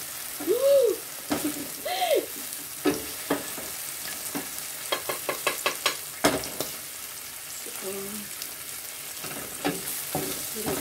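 Oil sizzling in a stainless steel frying pan as bell pepper strips are stirred and lifted out with a wooden ladle, with sharp taps of the wooden ladle against the cookware; a quick run of taps comes about five seconds in.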